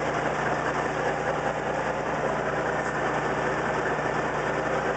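Semi truck's diesel engine idling steadily with an even low hum.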